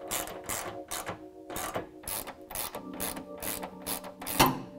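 Hand ratchet wrench being worked in quick back-and-forth strokes, roughly three a second, the sharpest stroke near the end, while the headlight is being fastened back in place. Background music underneath.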